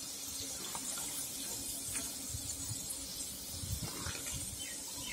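Battered chicken pieces deep-frying in hot oil in a clay pot: a steady sizzle with small crackles, late in the frying as the pieces turn golden. A metal slotted spoon stirs through the oil, with a few low knocks against the pot about two to four seconds in.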